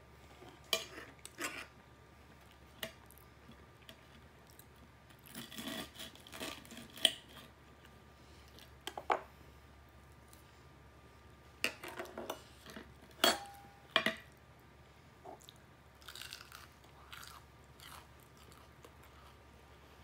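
Close-miked chewing and crunching of extra-crispy fried chicken and French fries, with irregular clusters of sharp crunches and short pauses between bites.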